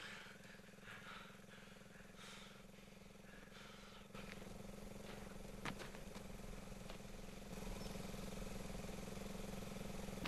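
Small dirt bike engine idling faintly, a steady low hum that grows louder about four seconds in and again a few seconds later.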